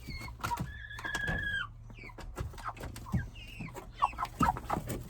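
Young broiler chickens peeping and cheeping, with one long held peep about a second in. Several short, sharp sneezes come near the end. The flock is sick with a respiratory infection, runny nose and cough.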